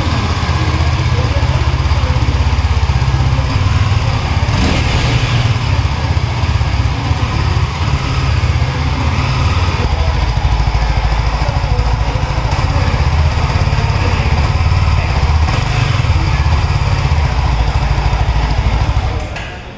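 Yezdi Scrambler's single-cylinder, dual-exhaust engine running with a deep, steady exhaust note. It cuts off just before the end.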